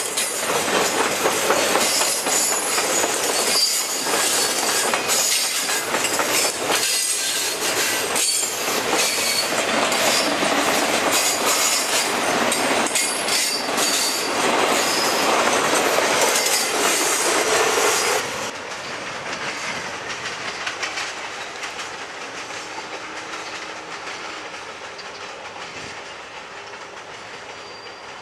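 RoadRailer highway trailers riding on rail bogies rolling past close by: steel wheels clacking over the rail joints with a high wheel squeal. About 18 seconds in the sound drops abruptly to a quieter rolling noise that fades as the train moves away.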